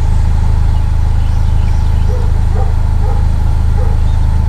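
A dog giving four short whimpering cries over a steady low rumble.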